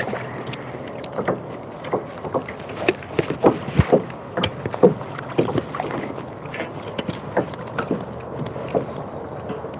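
Irregular knocks and taps on a kayak, loudest about three to five seconds in, over a steady background noise, as a freshly hooked bass is brought in.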